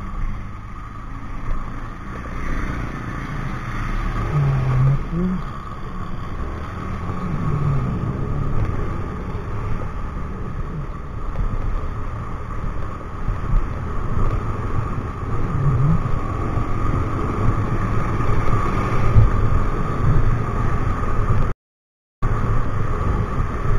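Motorcycle riding on a wet road, picked up by a helmet-mounted action camera: the engine runs with steady wind and road noise. The sound drops out completely for about half a second near the end.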